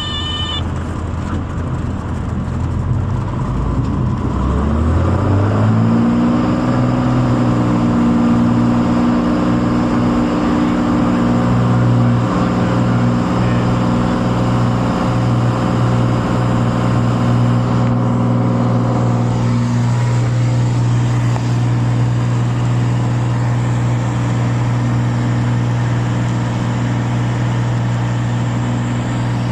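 Cessna 182's piston engine and propeller heard from the cabin: power comes up smoothly over a few seconds, the engine note rising, then it holds a steady full-power drone. A brief high steady tone cuts off in the first half second.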